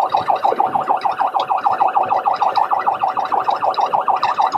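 Police car siren in a fast warble, sweeping up and down several times a second, during a pursuit.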